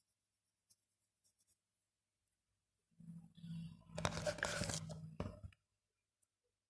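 Faint scratchy rustling of paper with a few small clicks, lasting about two and a half seconds and stopping suddenly, over a low electrical hum.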